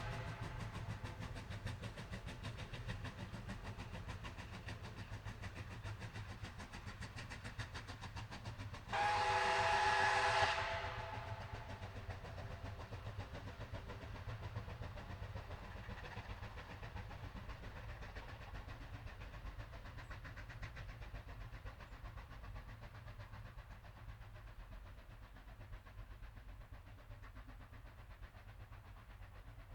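Train running with a steady low rumble that slowly fades. About nine seconds in, the train whistle sounds once for about a second and a half, a chord of several tones.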